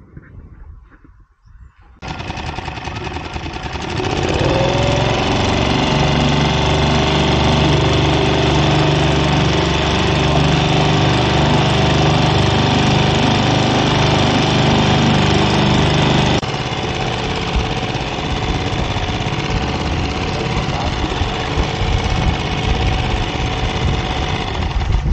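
Small outboard motor driving a dinghy under way. It speeds up a few seconds in and then runs steadily over the rush of wind and water, and the level drops suddenly about two-thirds of the way through.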